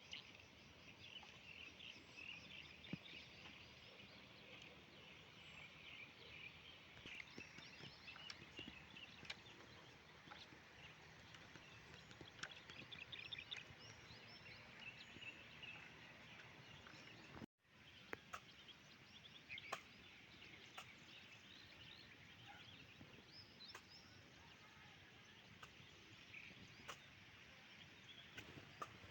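Faint outdoor ambience with birds chirping in quick repeated notes and a few small clicks, broken by a brief dropout of sound a little over halfway through.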